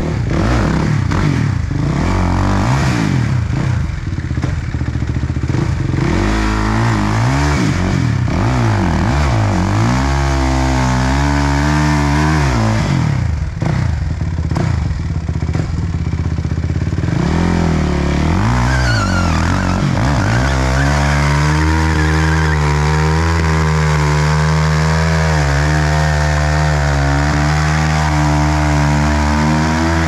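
Suzuki RM-Z450's 450 cc single-cylinder four-stroke engine with an Akrapovic exhaust, revved hard during a burnout. Its pitch rises and falls again and again for about the first twenty seconds, then it is held at high revs, fairly steady.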